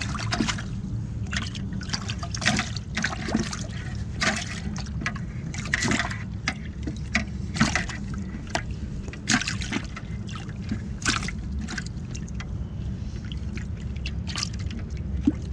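Live yellow perch splashing in the water of a bucket: irregular short splashes and trickles, over a steady low rumble.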